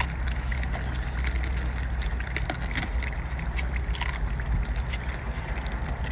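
Cooked lobster shell being bitten and pulled apart while eating: scattered crisp clicks and crunches, over a steady low rumble.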